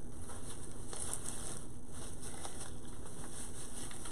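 Soft, irregular rustling and crinkling of artificial flowers, ribbon and deco mesh being handled and pushed into place on a wreath, over a steady hiss.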